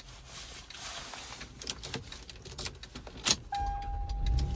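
Car keys jangling and clicking, then about three and a half seconds in the older Lexus's engine starts and runs with a low rumble, a steady electronic chime tone sounding over it. It starts without the earlier squeak, which the owner hears as much better now that the power steering fluid has been topped up.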